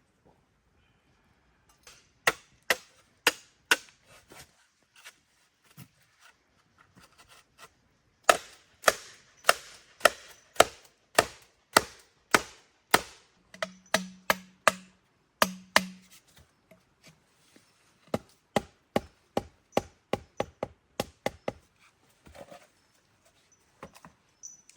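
Blade chopping: a run of sharp blows, about two a second, with a pause early on, strongest in the middle and softer near the end.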